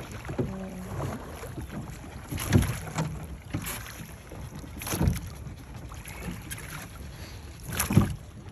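Rowboat oars pulling through the water: three strokes, each a short sharp splash-and-knock, about two and a half seconds apart.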